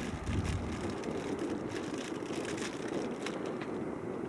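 Airbus A380's jet engines at low taxi power, a steady, even engine noise with no rises or falls, with faint scattered crackles over it.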